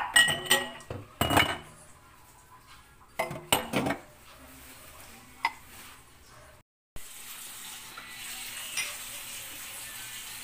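A metal cooking utensil knocking and clanking against a metal wok: a quick run of sharp, ringing knocks in the first few seconds and one more near the middle. After a short break about seven seconds in, a steady hiss.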